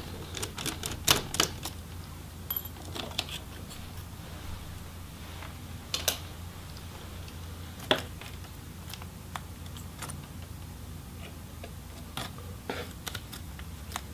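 Small sharp clicks and taps from hands handling the opened laptop's plastic parts and ribbon-cable connectors: a quick cluster in the first few seconds, then single clicks every second or two.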